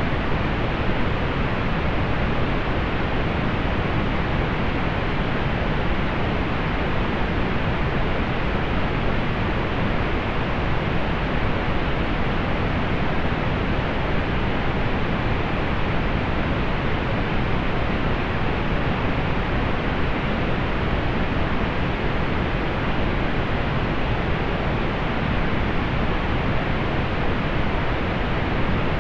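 Steady synthetic pink noise, an even hiss with no changes or events, softened at the top so that little is heard above the upper treble.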